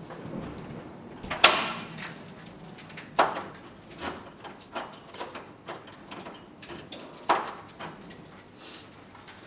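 A door swinging shut with a loud knock about a second and a half in, then more sharp knocks, two of them loud at about three and seven seconds in, with lighter clicks between.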